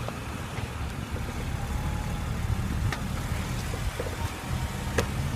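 BMW X3 moving with its engine running, and a few sharp clicks from the drive shaft in the second half: the knock of a worn CV joint.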